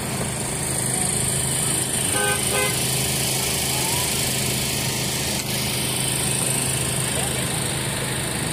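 Vehicle engines idling with a steady low hum under crowd chatter, and a car horn tooting twice in quick succession about two seconds in.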